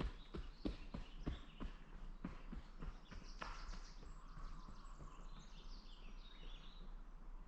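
A trail runner's footsteps, about three strides a second, fading away as the runner moves off. Faint birdsong follows in the second half.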